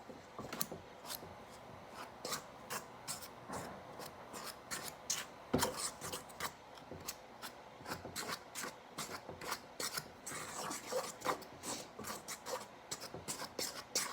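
A utensil cutting cold vegetable shortening into flour in a mixing bowl: quick, irregular scraping strokes against the bowl, a few a second, as the mixture is worked toward a crumbly texture.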